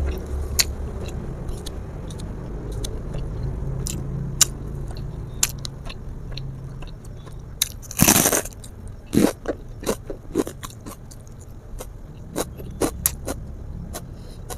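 A person eating river snail curry: chewing and crunching, with scattered sharp clicks of shells and utensils, and one short, louder burst of noise about eight seconds in.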